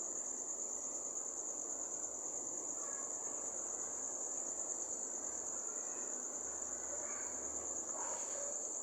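Crickets trilling steadily at a single high pitch.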